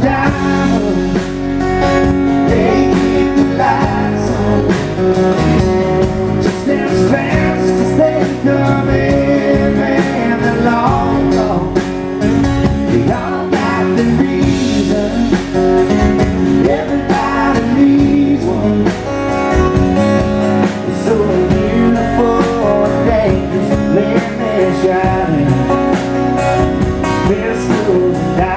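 Live band playing a song: a man singing lead over strummed acoustic guitar, with a woman singing along and electric bass underneath.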